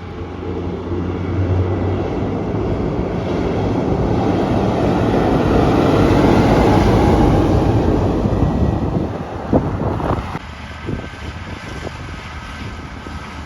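Diesel engine of heavy farm machinery growing louder as it passes close, loudest about halfway through, then dropping away after about ten seconds, with wind on the microphone.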